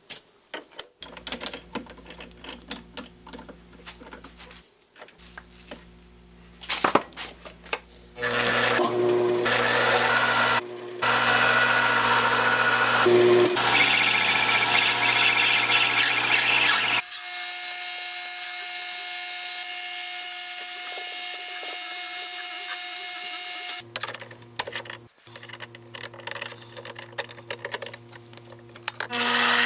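Metal lathe running and cutting brass stock, heard in several edited pieces. There are light handling clicks over a low hum at first, then a loud steady machine whine with cutting noise through the middle, which stops suddenly. A steady many-toned machine sound and a quieter hum with clicks follow.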